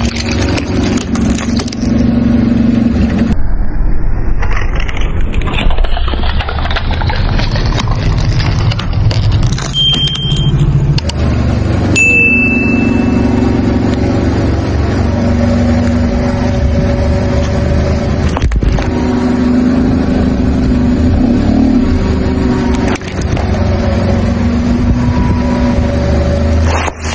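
Car engine running, rising in pitch as it revs and pulls away a few seconds in, then running steadily.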